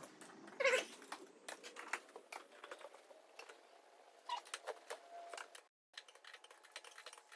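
Hand torque wrench ratcheting in short clicks as the beadlock ring bolts are tightened around the wheel to a 25 lb-ft spec. A brief high call sounds about half a second in.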